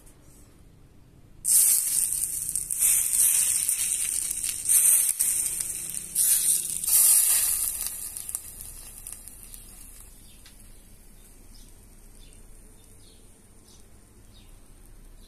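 A loud hiss that starts suddenly about a second and a half in, swells a few times, then dies away over several seconds, leaving a few faint ticks.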